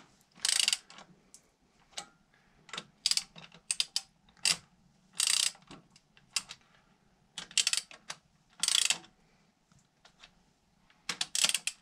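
Socket ratchet wrench clicking in short runs with pauses between them, as the cylinder head bolts are run down by hand to seat them before torquing.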